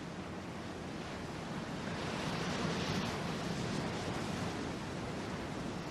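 Surf breaking on a sandy beach, a steady wash of waves that swells to its loudest about two to three seconds in and then eases.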